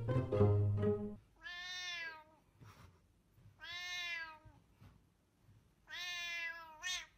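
Plucked-string background music stops about a second in, then a cat meows three times, each a drawn-out meow about a second long with roughly two-second gaps, the last rising sharply at its end.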